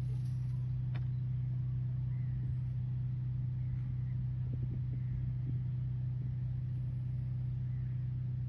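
A steady low mechanical hum with a low rumble beneath it, unchanging throughout.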